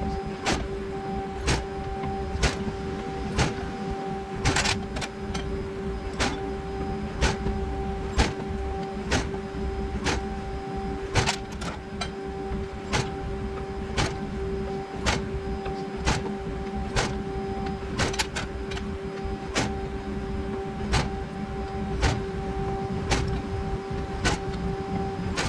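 Press brake running with a steady hum, and sharp clicks evenly spaced about once a second.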